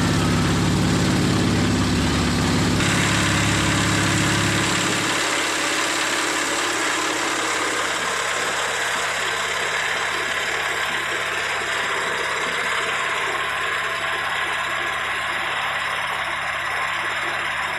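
Engine of a motorised trawler boat running under way, with a steady rushing noise over it. The low engine drone drops away about five seconds in, leaving mostly the rushing noise.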